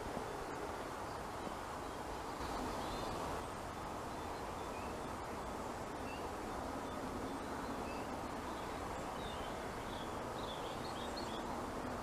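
Countryside ambience: a steady rushing background noise with small birds chirping now and then, most often near the end.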